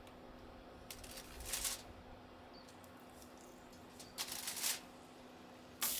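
Hot flat-top griddle hissing in two short bursts, then a sudden sizzle near the end that carries on, typical of chicken going onto the hot surface.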